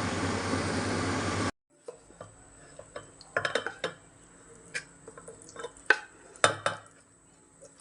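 A steady rushing noise cuts off abruptly about a second and a half in. Scattered clinks and knocks of a spoon against metal dishes follow, like kitchen utensils being used to stir and serve.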